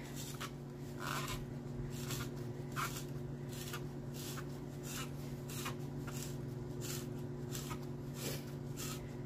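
Zucchini being cut into spirals with a handheld Tupperware spiralizer. Each twist of the blade gives a short scraping rasp, about two a second, over a steady low hum.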